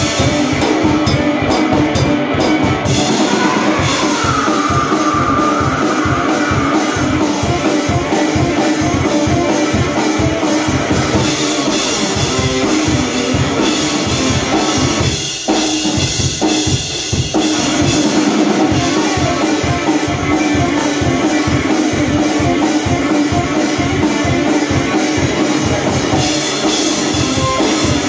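Live blues-rock from a guitar-and-drums duo: electric guitar over a drum kit beating hard and fast, about four hits a second, with crashing cymbals. About halfway through the drums drop back for a couple of seconds before the full beat returns.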